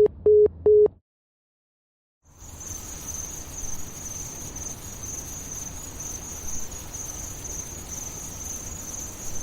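Three short telephone beeps at one pitch as a call ends, then a second of silence, then a steady high chirring of crickets.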